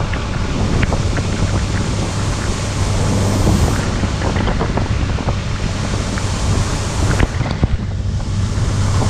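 Case 2188 combine harvester running at work, with a steady low engine hum under a dense rushing noise and scattered ticks. Wind buffets the microphone.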